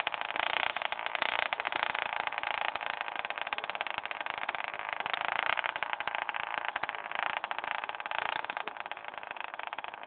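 A vehicle running and moving: a steady noisy rush with a rapid fine crackle through it.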